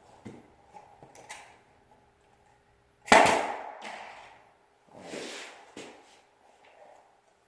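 A nail gun firing once: a single sharp, loud crack about three seconds in that dies away over about a second. A second, softer sound follows about two seconds later.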